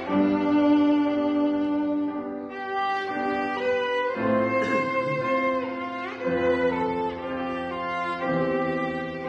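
Violin played with the bow, a slow melody of long held notes that change every second or two, with one note wavering near the middle.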